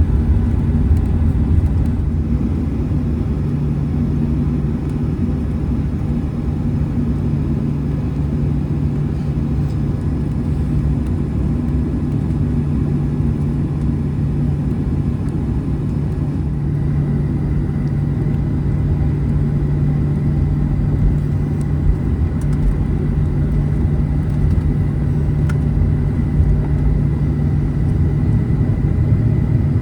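Cabin noise of a Boeing 737-800 on the ground at low thrust: the steady low rumble and hum of its CFM56 engines. A thin high steady tone joins about halfway through.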